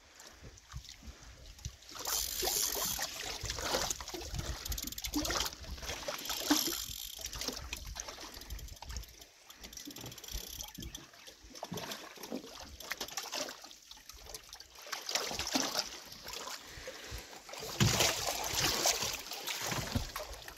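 Water splashing and lapping in irregular bursts as a hooked carp is played close in and breaks the surface.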